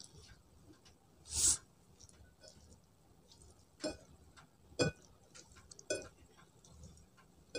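Eating with bare fingers: a hand mixing and squeezing rice on a plate, with a short breathy rush about a second and a half in and a few sharp clicks and taps around four, five and six seconds in.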